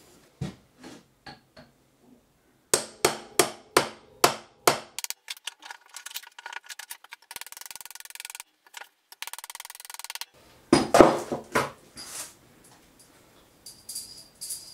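Sharp metal-on-metal knocks: a steel block on top of a spindle shaft is struck to drive the shaft into the inner race of a freezer-chilled 30206 tapered roller bearing held on the vise jaws. The blows come in rapid runs, a quick series in the first few seconds and another loud cluster near the end, with a stretch of hiss in between.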